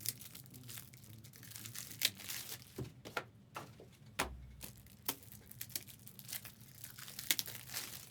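Trading-card pack wrappers being torn open and crinkled, with a run of sharp clicks and crackles and a low thump about four seconds in.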